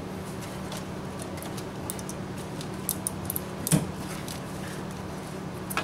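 Light clicks and rattles of small parts and tools being handled in an engine bay, with one louder clack a little past the middle, over a steady low hum.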